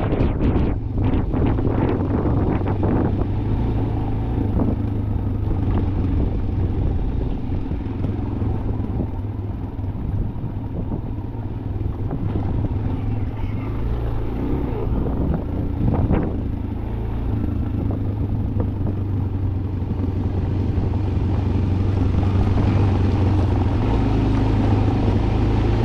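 A vehicle running steadily, a low rumbling hum under continuous noise, with a few brief knocks in the first seconds.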